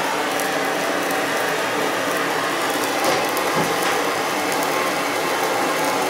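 Vintage Quasar microwave oven running with electrical arcing inside: a steady hum under a continuous crackle and hiss from the arcing and the burning on the cabinet, with a couple of small knocks about halfway through.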